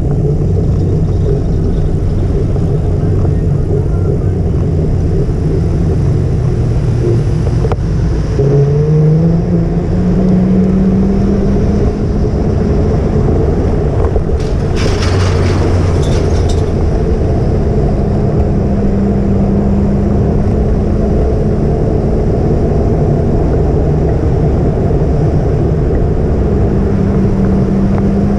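Motor vehicle engine running under steady road noise and wind rumble, its pitch rising as it speeds up about eight to ten seconds in, then holding steady. A brief hiss comes about halfway through.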